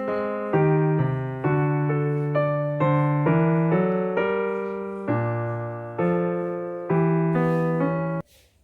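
Background piano music, a slow run of chords that each fade after they are struck, cutting off suddenly near the end.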